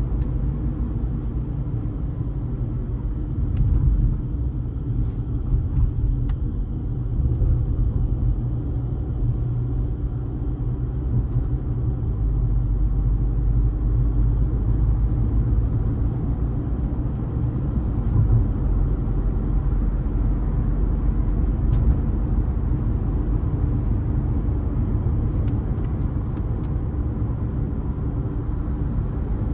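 Car driving along a road: steady low rumble of tyre and engine noise.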